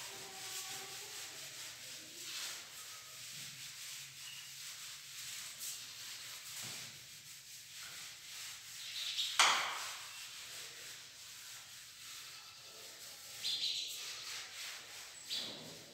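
Chalkboard being wiped with a board duster: repeated dry rubbing strokes across the slate, with a louder stroke about nine and a half seconds in.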